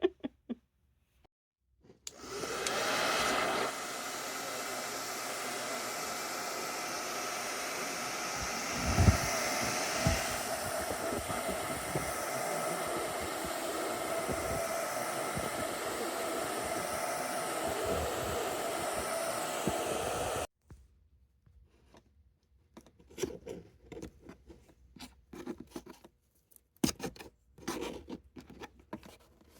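Hand-held hair dryer switched on about two seconds in, blowing steadily for some eighteen seconds with a few low thumps near the middle, then switched off abruptly. Scattered light clicks and rustles of handling follow.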